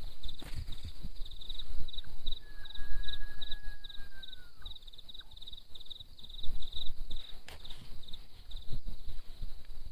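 Forest insects chirping in a steady pulsed rhythm, about three chirps a second, with one long whistled note a couple of seconds in. Under them runs uneven low rumbling and thumping close to the microphone, the loudest sound.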